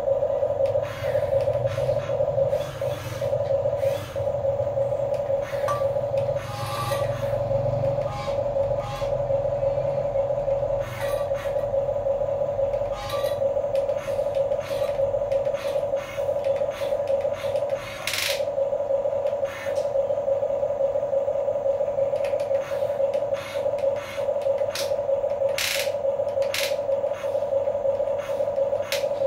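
Huina 1550 remote-control excavator's small electric gear motors whining steadily as the boom and arm move, with a few sharp clicks.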